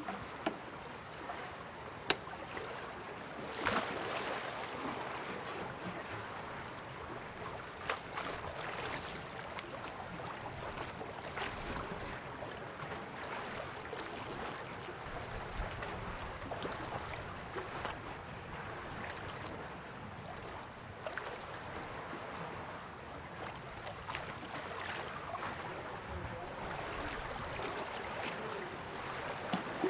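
Sea ambience: waves and water washing steadily with wind, broken by a few sharp knocks.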